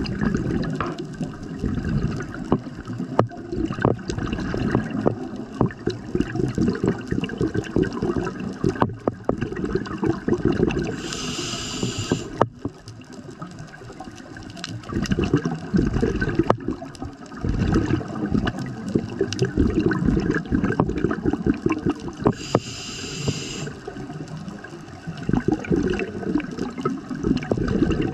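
Scuba diver breathing through a regulator underwater. Each exhalation is a long stretch of bubbling and gurgling. Two short hissing inhalations come through the regulator, about eleven seconds in and again about eleven seconds later.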